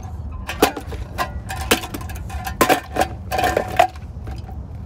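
Ride-on sandbox digger being worked by hand: a string of clanks, knocks and short scrapes from its arm and scoop in the sand, with a brief squeak near the end.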